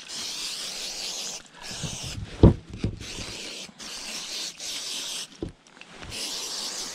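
Permethrin spray bottle hissing in repeated bursts of about a second each as a boot's outside is sprayed down. A single thump about two and a half seconds in.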